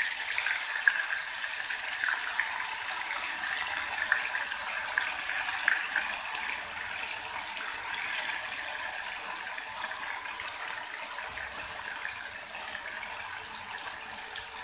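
Marinated chicken pieces sizzling in hot desi ghee in a kadhai, with little crackles and pops as pieces are added. The sizzle eases off gradually.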